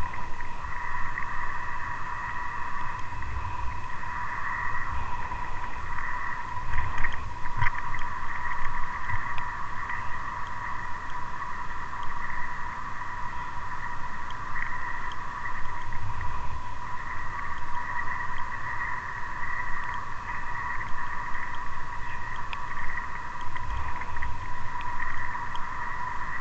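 Car driving along a road, picked up by a dashcam: low road rumble with a few soft bumps, under a steady high-pitched whine.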